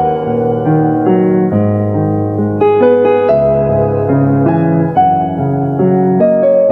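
Background piano music: a gentle melody over sustained bass chords, notes changing about every half second.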